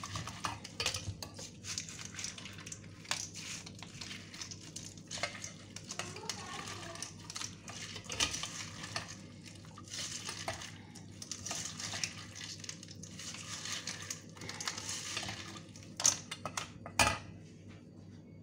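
Soft, soaked tamarind being squeezed and mashed by a gloved hand in a stainless-steel mesh strainer to free the seeds: steady squishing and rubbing with frequent small clicks against the metal, and a couple of sharper knocks near the end.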